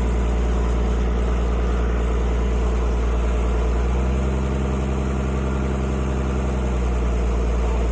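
Mini tractor engine idling steadily, with a low hum whose pitch shifts slightly for a few seconds in the middle.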